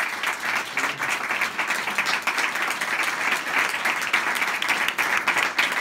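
A small audience of about forty people applauding steadily.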